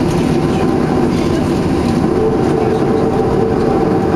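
Cabin noise of a Boeing 737-300 taxiing, heard from inside: a steady low rumble of the rolling airliner and its engines at taxi thrust, with a few faint steady tones over it.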